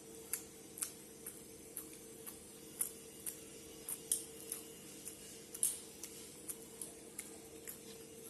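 Close-up eating sounds: soft, irregular wet clicks and smacks of chewing, about two a second, over a faint steady hum.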